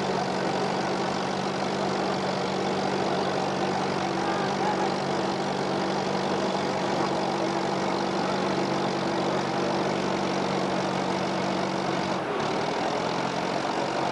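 Farmall tractor engine working under load as it pulls a weight sled, holding a steady note. About twelve seconds in, the engine note drops.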